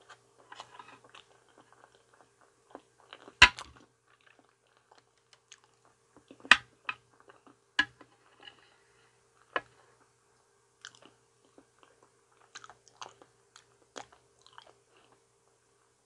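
Close-miked chewing of soft ripe banana: wet mouth clicks and smacks, with a few sharper, louder clicks here and there.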